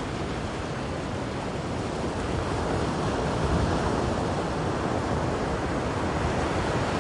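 Ocean surf breaking on rocks, a steady rushing wash that swells about two seconds in and stays up.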